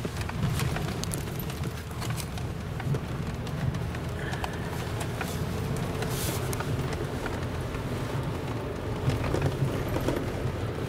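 Truck engine running steadily, heard from inside the cab, as it drives through snow and mud on chained tyres, with scattered clicks and patter of mud and slush hitting the body and windshield.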